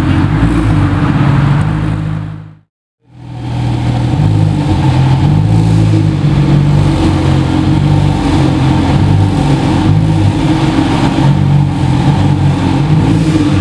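A car engine outside for the first two and a half seconds, fading out. Then, after a brief gap, the Porsche 911 GT2 RS Clubsport 25's twin-turbo flat-six running at idle, continuous to the end.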